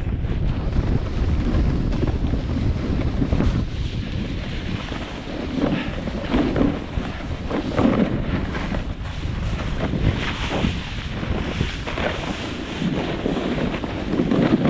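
Wind buffeting the action camera's microphone during a downhill run on snow, a steady rumble. Over it, the rough hiss of edges scraping across tracked snow comes in surges at intervals, with the strongest about eight seconds in.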